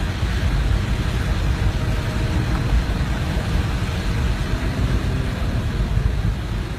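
Heavy wind noise from the tornado's storm winds: a steady low rumble with hiss as the wind buffets the microphone.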